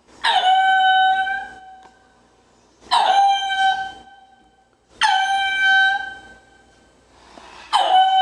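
An animal calling four times, every two to three seconds. Each call starts abruptly and then holds one steady pitched note for a second or two.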